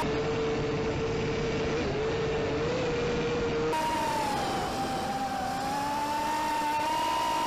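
Brushless motors and propellers of a ZMR250 racing quadcopter (Cobra 2208 2000kv motors on Little Bee 20A ESCs) running with a steady whine. The pitch dips briefly about two seconds in and jumps abruptly higher a little past halfway. The quad has recently developed momentary hiccups that the owner is trying to diagnose.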